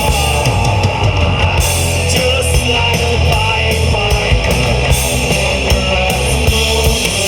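Live rock band playing: electric guitars, bass guitar and drum kit, with steady drum hits throughout.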